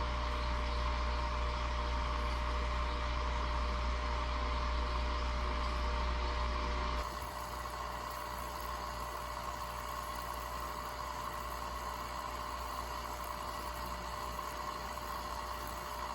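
A steady machine hum with a hiss over it. About seven seconds in it changes abruptly: the deep hum drops and a higher hiss comes in.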